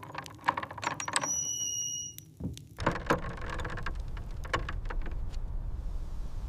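A run of sharp mechanical clicks and rattles, with a brief steady high-pitched squeal about a second in. From about halfway a low rumbling noise sets in, with scattered clicks over it.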